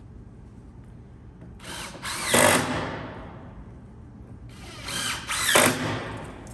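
Power drill driving screws into the wooden frame of a picnic table: two short runs about three seconds apart, each rising in pitch as the motor spins up and falling as it slows.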